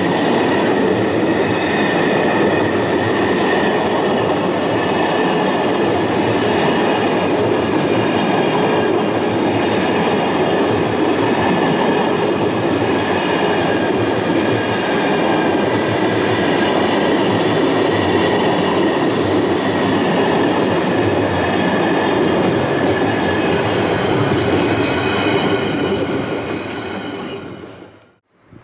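A train running past on the rails: a steady rumble with faint steady high tones, dying away near the end and then cut off abruptly.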